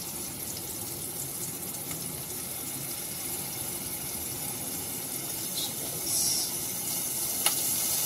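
Steady watery hiss from a saucepan on a gas stove as liquid is poured in from a carton, with a short sharp click near the end.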